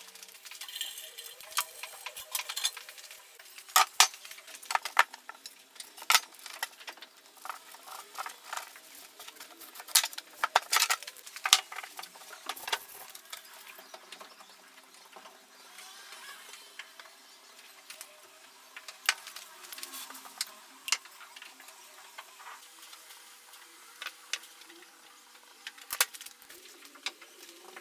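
Light clicks, taps and metallic clinks of hand work at a workbench, including a metal tin being handled and opened, scattered irregularly over a faint steady hum.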